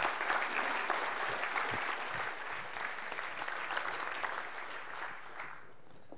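Audience applauding, fading away about five and a half seconds in.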